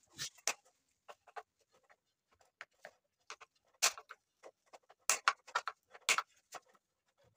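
Screwdriver tip prying up the crimped metal tabs along a radiator's core header to free its plastic side tank: a run of irregular sharp clicks and scrapes, the loudest ones about four, five and six seconds in.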